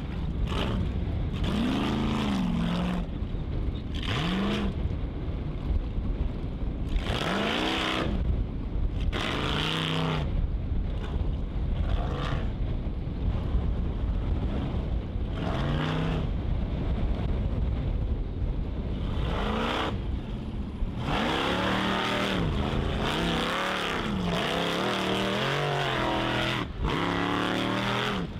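A Formula Offroad buggy's engine revs hard in repeated bursts as the buggy claws up a steep dirt hill. The pitch rises and falls again and again, with the revving coming quicker and more continuously over the last few seconds.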